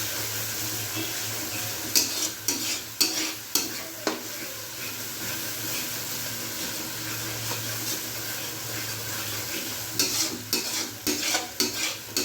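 Tomatoes and ginger-garlic paste sizzling in hot oil in a pan while being stirred. A spatula scrapes and knocks against the pan in two spells, about two to four seconds in and again near the end.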